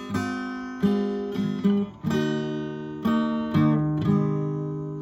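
Acoustic guitar strumming the closing chords of the song, without singing. The last chord, struck about four seconds in, is left to ring and fade.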